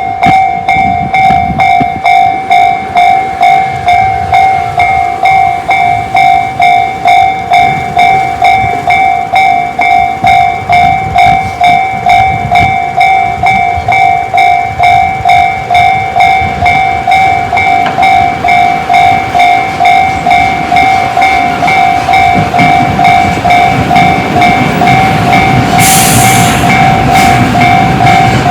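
Japanese railway level-crossing alarm, Tobu's electronic 'tone C' type, ringing in a steady repeating ding about two to three times a second. The rumble of a Tobu 500 series Revaty limited express approaching grows over the last several seconds, with a brief hiss near the end.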